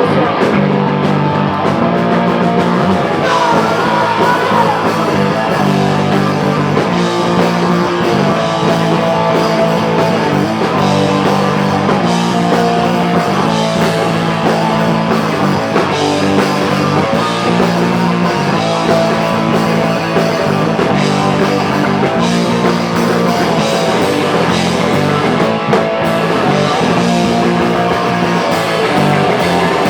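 Live rock band playing a loud, guitar-driven song, steady throughout with chords changing every second or two.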